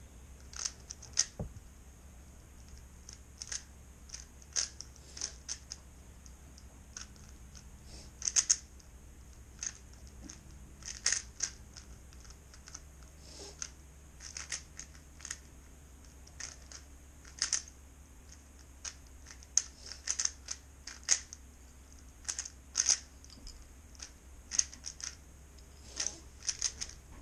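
A 3x3 Rubik's cube being turned by hand to solve it, its plastic layers clicking at irregular intervals, sometimes several turns in quick succession.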